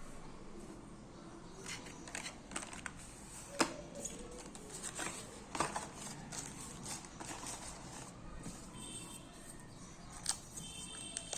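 Hands handling a new phone and its packaging during unboxing: scattered clicks, taps and rustles at irregular intervals.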